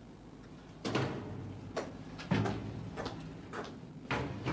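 About six irregular knocks and bangs, each echoing off hard tiled walls.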